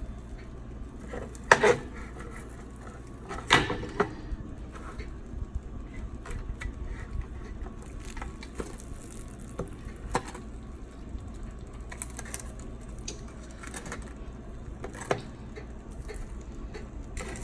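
Metal spatula knocking and scraping against a metal baking tray as whole spiced fish are turned over, a few sharp clicks standing out over a steady low hum.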